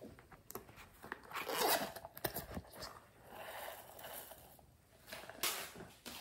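Plastic container handled and shaken, pouring heart-shaped sequins out onto slime: several short rustling, scraping bursts, the loudest about two seconds in.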